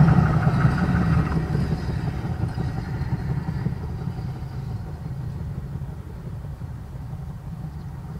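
Narrow-gauge steam train running away into the distance, its low rumble loud at first and fading steadily.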